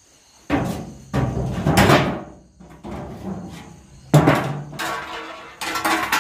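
Plastic crates being lifted and shifted against one another, giving several bursts of hollow clattering and scraping.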